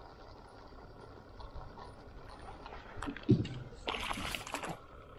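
A hooked walleye splashing at the water's surface beside the boat as it is reeled in, a short burst of splashing about four seconds in, after a single dull thump a little after three seconds.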